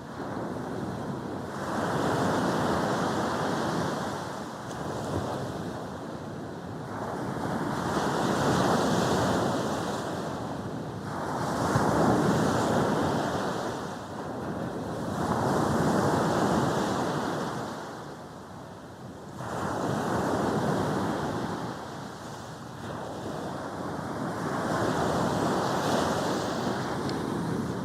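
Sea waves breaking on the beach and washing back, swelling and fading again every few seconds.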